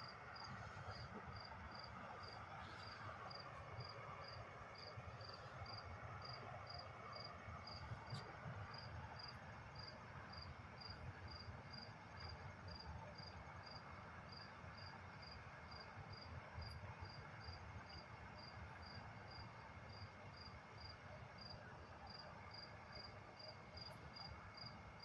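Cricket chirping faintly in steady, evenly spaced high-pitched pulses, about three a second.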